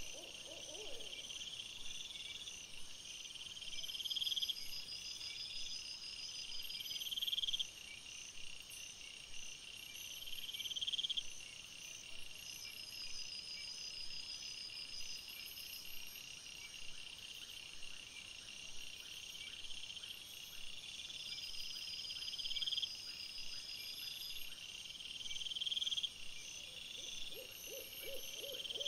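Night chorus of calling wildlife: a rising trilled call, growing louder and cutting off sharply, repeats every two to three seconds, with a pause midway, over steady high-pitched pulsing chirps.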